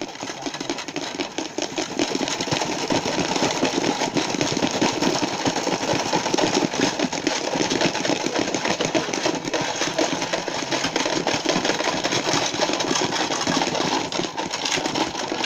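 Plastic toy refrigerator rattling and clattering rapidly as it is shaken hard, like a simulated strong earthquake. The rattle builds over the first couple of seconds, then keeps on steadily as a dense stream of fast knocks.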